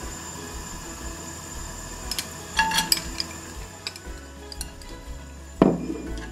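Clinks and knocks of cooking utensils against a frying pan, a cluster of ringing clinks about two and a half seconds in and one loud knock near the end, as carrot strips are put into the pan and stirred with chopsticks. Soft background music plays underneath.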